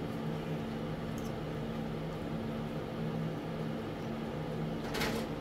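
Steady low mechanical hum from a running appliance. About five seconds in, a brief sharp clink from a metal fork against the steel pot.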